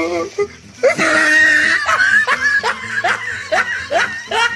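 A person laughing loudly: a long high cry about a second in, then a run of short rising 'ha' bursts, about three a second.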